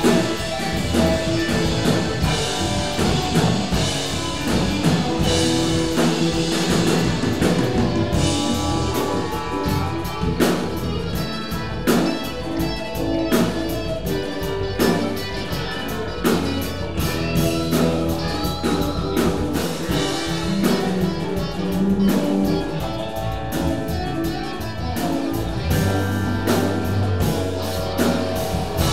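Live band playing an improvised rock jam: drum kit keeping a steady beat under electric bass, electric guitars and keyboard.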